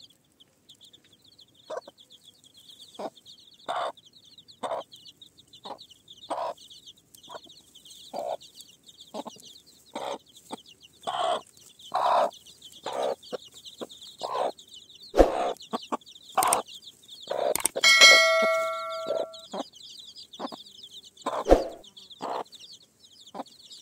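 Chickens clucking in short, irregular calls about once a second over a steady high chirring. About 18 seconds in, something metal is struck and rings for over a second.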